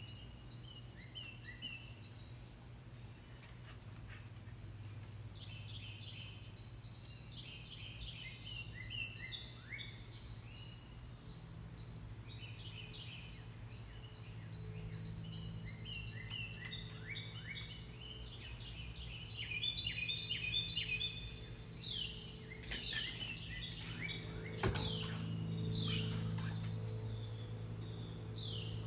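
Wild birds chirping and singing in the trees, many short repeated and down-sweeping notes, over a steady low hum that grows stronger from about halfway. One sharp tap stands out a few seconds before the end.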